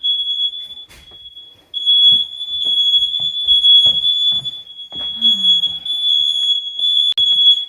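A household alarm sounding one loud, high-pitched steady tone, broken by a few short gaps, with some knocks underneath.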